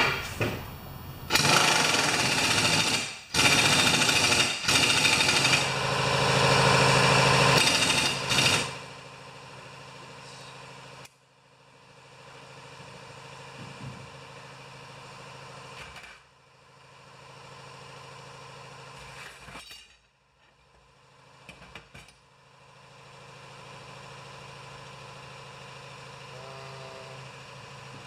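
Impact wrench on a 5/8 socket hammering the mower blade bolt tight, in three loud bursts over about seven seconds. After that comes a much quieter steady hum.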